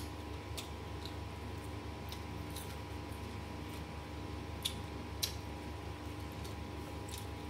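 Close-up eating sounds: scattered small sharp clicks and wet smacks of chewing and of fingers working food in a stone mortar, with two louder clicks a little past the middle. A steady low electrical hum lies underneath.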